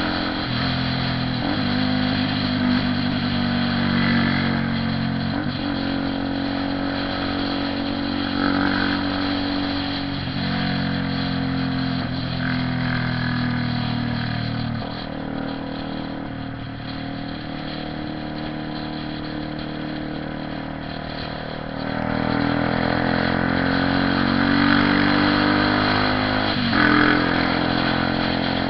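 Honda CB 300R motorcycle's single-cylinder engine running under way, its pitch rising and dropping again and again as it is revved and shifted through the gears. It eases off to a quieter, lower run for several seconds past the middle, then pulls hard again.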